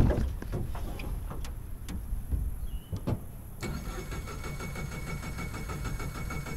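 A heavy thump of boots stepping down onto the jon boat's deck and a few knocks, then about three and a half seconds in a 25-horsepower outboard motor starts and settles into a steady idle.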